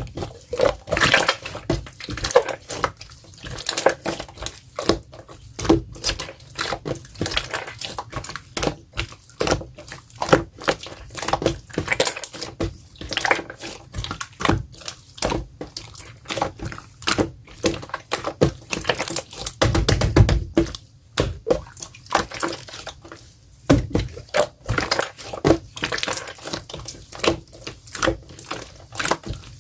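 Clear jelly slime being squeezed and pressed by hand, making a dense run of irregular wet clicks, pops and squelches, with a couple of duller thuds about two-thirds of the way through.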